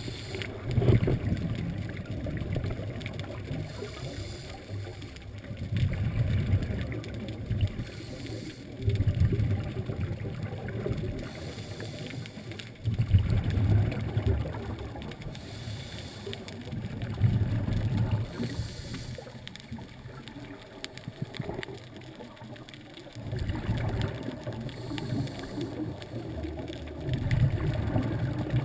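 Scuba breathing through a regulator underwater: a low bubbling rumble from each exhale every few seconds, alternating with the fainter hiss of the inhale.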